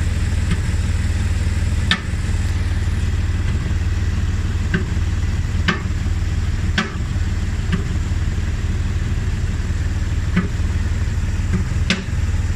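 BMW E60 running steadily with a sharp knock that comes at irregular intervals, every one to three seconds. The owner does not know its cause.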